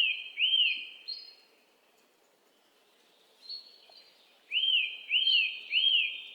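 Bird chirping: quick sets of three arched chirps with short higher notes. A quiet gap of about two seconds falls between the sets.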